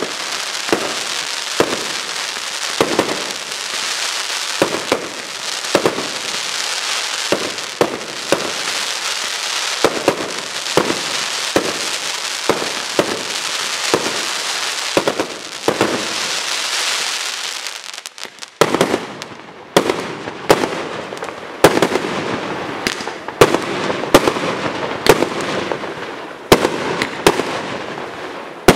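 Fireworks display: a steady stream of aerial bursts over a dense hiss. About two-thirds of the way in, after a brief lull, it turns into a run of louder, sharper bangs, several a second.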